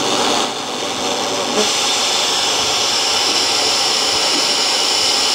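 Steady loud hiss of static from a Ramsons multiband transistor radio tuned between stations.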